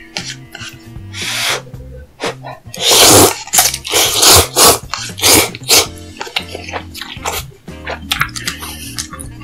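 Close-miked eating sounds from a raw-tuna mukbang: a run of loud, short, noisy bursts in the middle, over background music with a steady beat.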